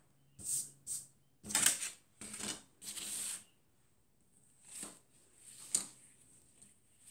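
Handling noises: about seven short rustles and light clatters as things are moved and set down on a cardboard-covered table and a piece of fabric is spread out.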